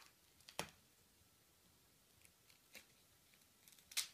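Faint handling noises over near silence: a few small clicks and ticks, a sharper click about half a second in and the loudest one near the end.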